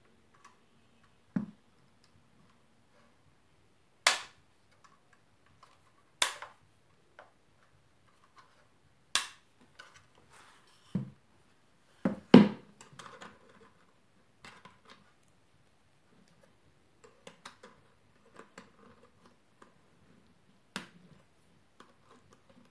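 Pliers clicking and snapping on the tiny nails that hold the bass button levers in a melodeon's wooden bass mechanism, as the nails are straightened and pulled out. Several sharp clicks a few seconds apart, with faint rattling and scraping of the small parts between.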